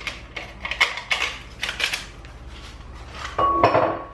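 Paper sachet of baking powder shaken and tapped over a glass mixing bowl, rustling in a quick run of short strokes. Near the end comes a louder clatter with a brief steady hum.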